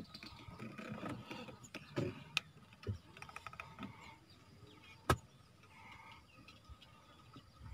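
A single sharp click of a golf club striking the ball on a chip-and-run shot, about five seconds in, with a few fainter taps before it.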